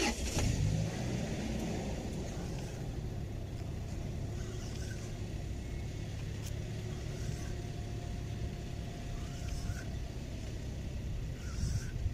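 An engine running with a steady low hum, its pitch rising briefly about a second in.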